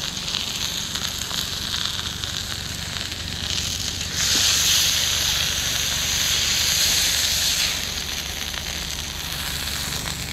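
Two steaks sizzling in a hot cast iron skillet, a steady frying hiss that grows louder for a few seconds in the middle as they are turned with tongs, over a steady low rumble.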